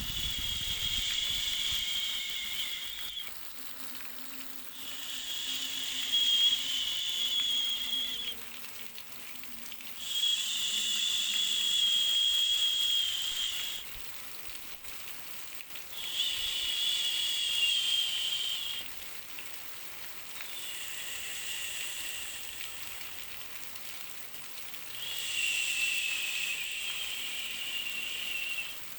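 White-noise track for soothing a baby: six hissing swells, each about three seconds long with short quieter gaps between them, carrying a faint whistling tone.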